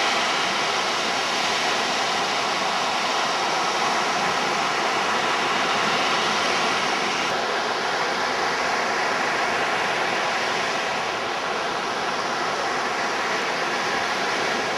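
Steady rushing noise of surf breaking and washing up the shore, mixed with wind.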